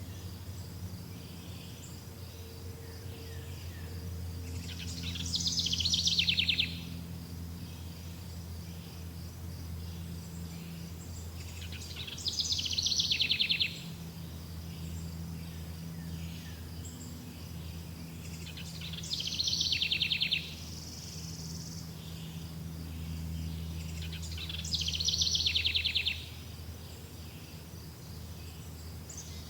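A songbird repeating the same short song four times, each a fast trill sliding down in pitch and lasting about a second and a half, over a steady high chirring of insects and a low hum.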